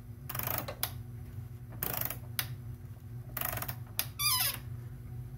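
Headlight aim adjustment screw on a 1995 Honda Civic being turned counterclockwise with a hand tool: three short scraping, squeaky bursts about every second and a half, each ending in a click, with a falling squeak about four seconds in, over a steady low hum.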